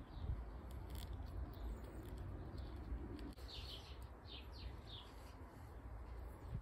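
Small bird chirping in short, falling high notes, a quick run of about four midway through, over a steady low outdoor rumble. A few faint clicks come from test leads and wires being handled.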